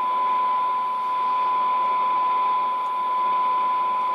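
Steady single-pitch test tone from an AM signal generator, received by a Tram D201 tube CB radio and played through its speaker over a background of receiver hiss, while its double alignment cores are peaked by ear. The tone's loudness dips slightly about a second in and again near the end.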